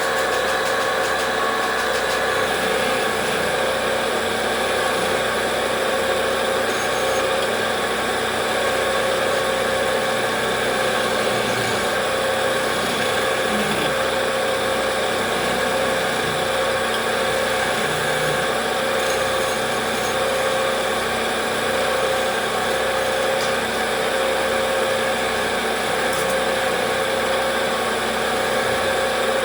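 Wood lathe running steadily, its motor giving a constant hum with a few steady tones.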